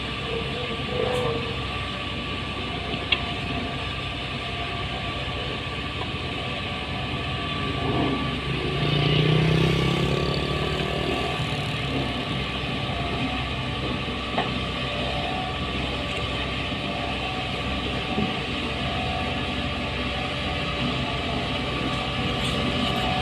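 Heavy construction machinery's engine running steadily, growing louder and rising in pitch for a few seconds about a third of the way in.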